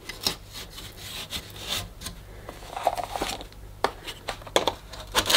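Hard plastic rubbing and scraping as a vacuum cleaner floor nozzle is forced onto its wand, with a few sharp knocks in the second half as it is pushed home.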